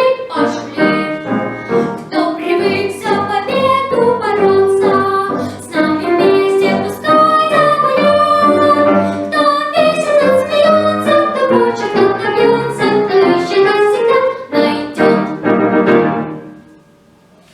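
Music: the closing bars of a song's accompaniment led by piano, a melody line carried over chords, fading out about a second before the end.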